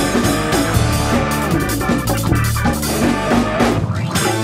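A live rock band playing an instrumental passage: drum kit, electric bass, electric guitar and keyboards together at a steady, loud level.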